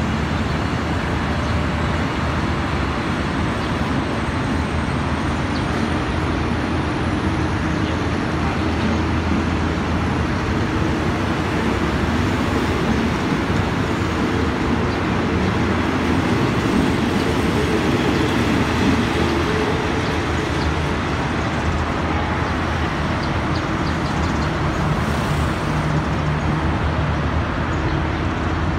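Passenger coaches of a State Railway of Thailand train rolling past a station platform: a steady rumble of wheels on rail, swelling slightly midway.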